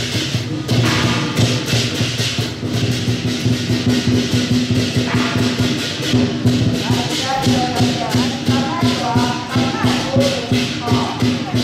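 Temple procession music: fast, steady percussion strikes over sustained low tones, with a wavering melody line coming in about halfway through.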